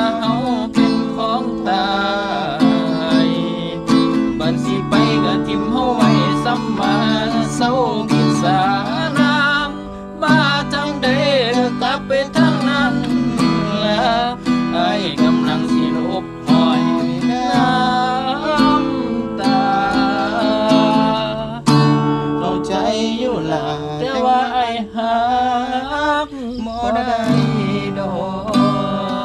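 Background song: a voice singing a wavering melody over plucked guitar accompaniment.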